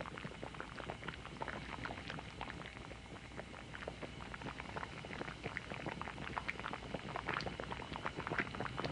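Pot of yashabushi (alder-cone) dye bath boiling, giving a steady run of small irregular bubbling pops.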